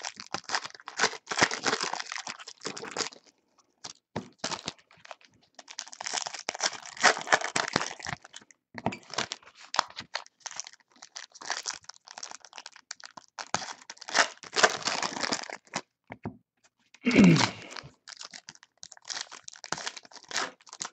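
Foil packs of Panini NBA Hoops basketball cards being torn open and crinkled by hand, in repeated bursts of ripping and rustling with brief pauses between them.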